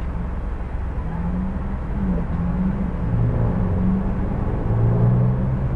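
Car engine and road traffic rumbling steadily, with low engine hums that shift in pitch and grow slightly louder after about two seconds.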